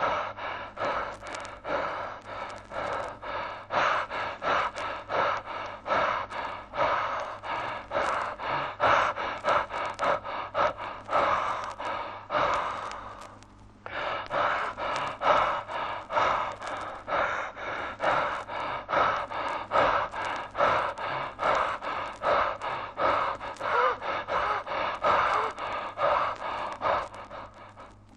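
A person panting heavily in quick, even breaths, about two a second. The breathing stops for about a second halfway through, then resumes.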